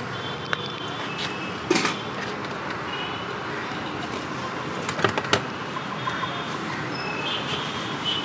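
A steel plate scraping and knocking against a large aluminium pot as cooked rice is scooped out, with sharp clanks about two seconds in and again about five seconds in. Steady street background with short high chirps now and then.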